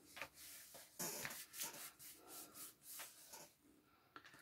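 Faint rubbing and light rustling of paper and card under fingertips, in short scattered strokes, as a layered card panel is pressed and smoothed into place.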